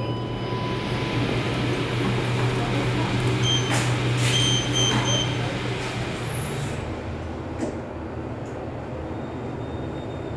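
KONE passenger lift car travelling, a steady low hum and rushing noise of the car in motion that drops away about seven seconds in. A few short high electronic beeps sound around the middle.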